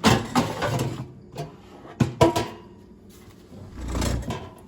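Cosori air fryer's drawer-style basket being handled: sharp knocks and clatter at the start and again about two seconds in, then a low sliding rumble near the end.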